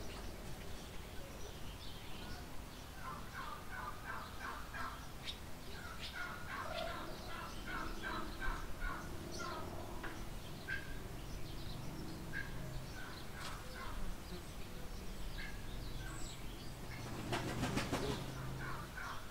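Barn bird chorus: runs of quick, repeated chattering calls from domestic fowl, with scattered high chirps from small birds. A brief, louder noisy burst comes near the end.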